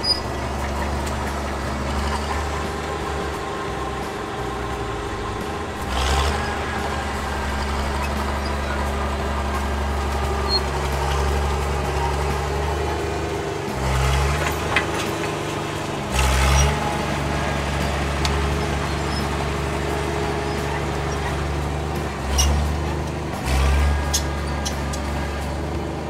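Cat D6 9U bulldozer's diesel engine running steadily under load, its note swelling several times as the dozer pushes, with a few sharp clanks.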